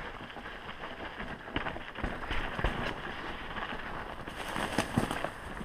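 Mountain bike rolling fast over rocky dirt singletrack: a continuous rattle and tyre noise, with several sharp knocks as the wheels strike rocks, the loudest about five seconds in.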